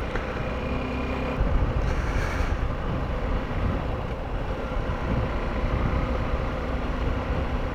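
Motorcycle running on the road while being ridden, a steady engine and road rumble with wind noise on the microphone.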